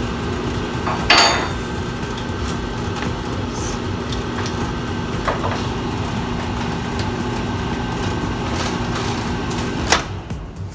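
Whirlpool microwave oven running on a test heat after a new door switch was fitted: a steady electrical hum with fan noise that starts at once, with a clatter about a second in. It cuts off with a click near the end.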